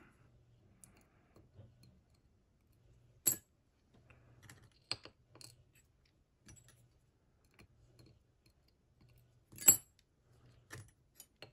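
Small metal parts of a disassembled ASSA D12 lock cylinder clicking and ticking as its pins are handled and removed: scattered light clicks, with two sharper ones about three seconds in and near ten seconds.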